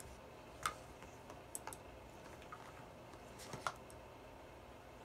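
Scattered light clicks and taps of plastic makeup cases being handled: an eyeshadow palette being closed and a mascara tube picked up. The sharpest clicks come about two-thirds of a second in and again around three and a half seconds in.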